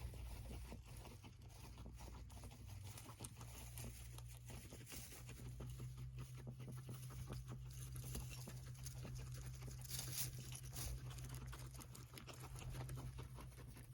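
Guinea pigs moving about and nibbling: faint, rapid, irregular patter of small clicks and rustles, over a steady low hum.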